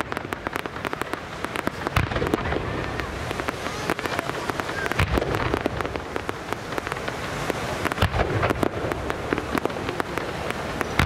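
Aerial fireworks going off in a dense, continuous string of bangs and crackles, with louder booms every few seconds.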